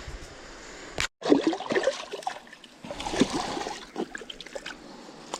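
Creek water splashing and trickling in irregular bursts, with a sharp click about a second in.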